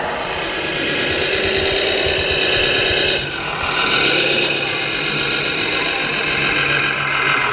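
Radio-controlled scale model truck running, its sound unit playing a steady diesel truck engine. The engine sound changes abruptly about three seconds in.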